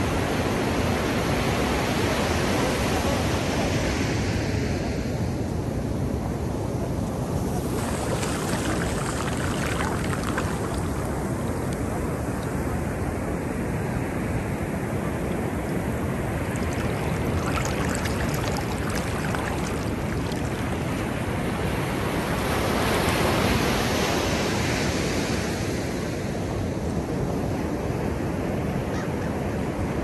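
Ocean surf: a continuous rush of breaking waves with foamy wash running up the sand, swelling twice as waves break and surge in, about a quarter of the way through and again past two-thirds.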